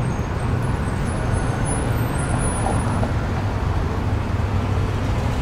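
Steady street traffic noise with a low, even rumble.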